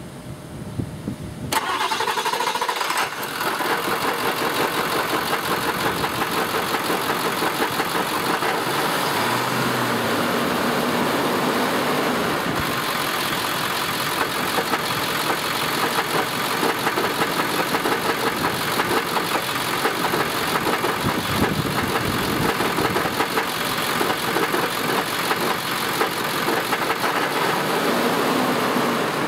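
Ford Power Stroke V8 turbodiesel starting about a second and a half in, then idling with a rapid knocking rattle. The rattle comes at low rpm and fades with throttle; the owner does not know its cause.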